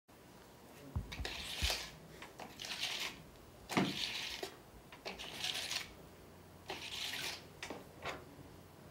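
A hand rubbing and patting the hard plastic dome shell of a touch-sensing robot: about five short swishing strokes, each lasting about half a second, with a few soft thumps near the start.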